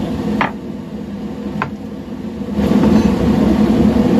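A steady low mechanical hum that grows louder about two and a half seconds in, with a couple of short knocks as a raw whole chicken is handled on a wooden cutting board and set into a ceramic bowl.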